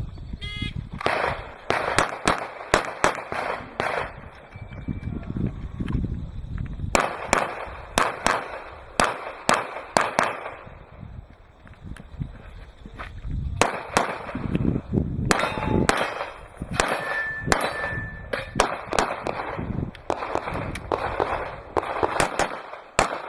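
Strings of rapid pistol shots, several a second, broken by two short pauses, with steel targets clanging and briefly ringing when hit.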